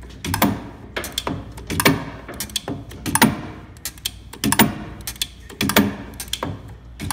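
The turret slide of a Hardinge DV-59 turret lathe being run back and forth by hand on its lever, making a series of sharp metallic clicks and clunks, about one or two a second, some in quick pairs.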